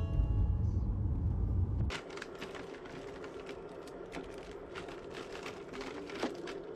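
Low rumble of car road noise inside the cabin for about two seconds. It cuts off, and then a cellophane bag crinkles and crackles in quick, irregular clicks as a wrapped muffin is handled and set down on a plate.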